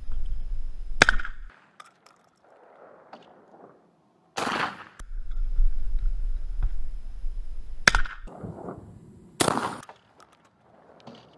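Derya MK12 semi-automatic 12-gauge shotgun firing single shots, four sharp reports spaced a few seconds apart, with a low rumble on the microphone between them.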